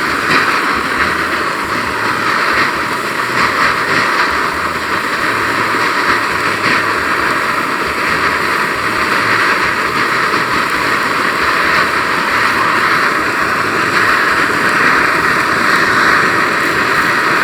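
Ribeye steak sizzling steadily as it sears in hot oil in a pan, the crust forming on its first side.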